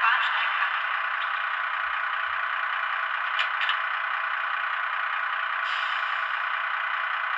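Sound decoder in a PIKO model of a DB class 245 diesel locomotive playing a steady diesel-engine idling sound through the model's small speaker, thin and with no deep bass. A couple of faint clicks come about halfway through.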